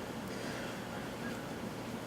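Steady background hiss of a small room, with only a faint tick or two of handling.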